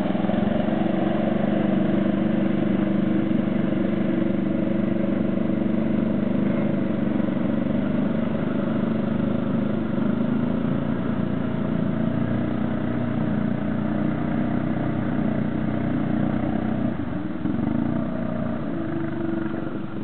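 ATV engine running steadily at an even pitch, with water splashing around the quad's wheels as it drives through a river.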